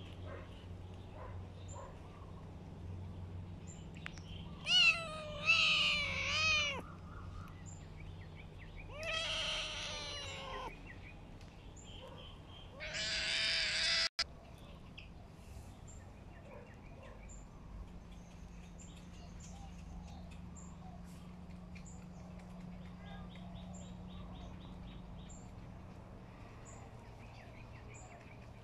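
Cat meowing: four bouts of high, wavering meows in the first half, the last the loudest and cut off abruptly. A quieter steady background follows.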